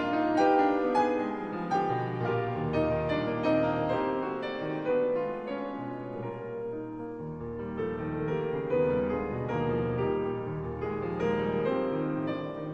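Background music: a slow, gentle piece led by piano.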